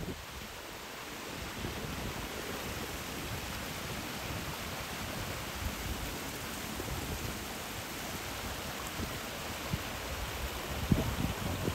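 Small mountain stream running over rocks: a steady rushing that grows a little louder about a second and a half in. A few brief knocks near the end.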